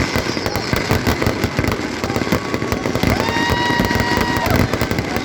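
Many fireworks going off together in dense, rapid crackling pops. A steady whistling tone sounds for about a second and a half, starting about three seconds in.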